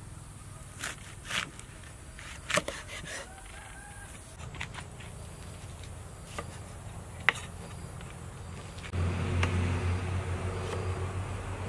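Cleaver chopping onion on a wooden chopping board: sharp, separate knocks every second or so. About nine seconds in, a louder steady noise with a low hum comes in and continues.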